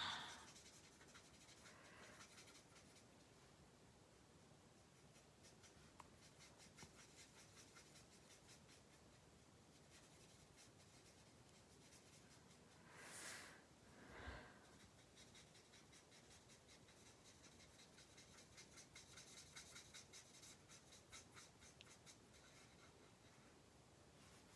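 Near silence with the faint scratch of a marker nib colouring on paper, stroke by stroke. Two short soft swishes come about halfway through.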